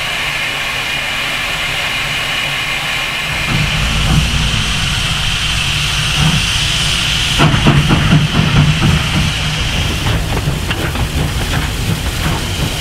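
South African Class 19D 4-8-2 steam locomotive with steam hissing steadily from around its cylinders. A low rumble joins about three and a half seconds in, and from about halfway a run of irregular chuffs and knocks rides over the hiss as the engine works.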